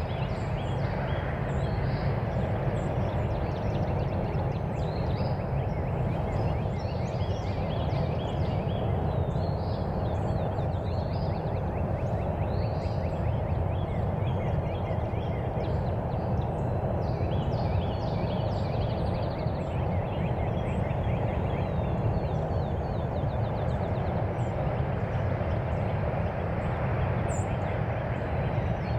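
Many songbirds chirping and trilling in a dawn chorus over a steady low rumble of road traffic.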